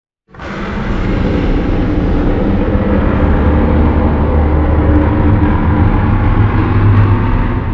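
Sound effect for a Bananogmius creature: one long, loud rumbling sound that starts abruptly and fades out near the end, lasting about seven seconds.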